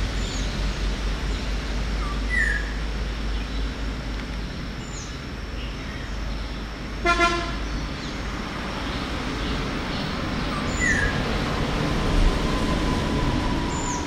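Steady background traffic noise with a brief vehicle horn toot about halfway through. Short, high, falling bird chirps come every few seconds.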